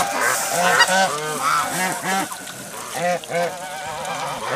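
Farm animals at a feeding trough calling over one another: many short, pitched calls that rise and fall, several a second, overlapping.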